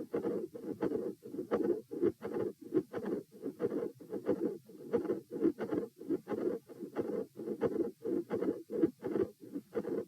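Heart sounds heard through a stethoscope: a fast, regular lub-dub heartbeat with a midsystolic murmur and a split second heart sound.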